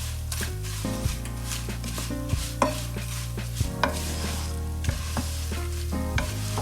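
Food sizzling in hot oil in a cooking pot, with the irregular clicks and knocks of a spoon stirring and striking the pot.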